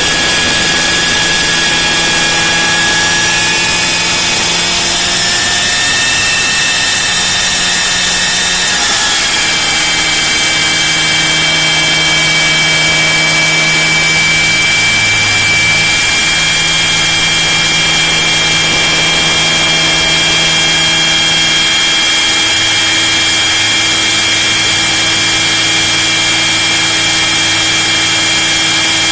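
Radio-controlled model helicopter in flight, heard from inside its fuselage: its motor and drivetrain give a high steady whine over a loud rush of rotor noise. The whine wavers in pitch at first, then shifts about nine seconds in and holds steady.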